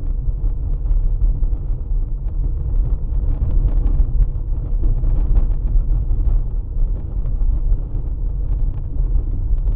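Lada Granta driving at steady speed in fourth gear, heard from inside the cabin: a steady low road-and-engine rumble with faint, irregular light knocks. The knock from the rear is the one the owner traces to the drum brake shoes, their thin retaining springs having weakened.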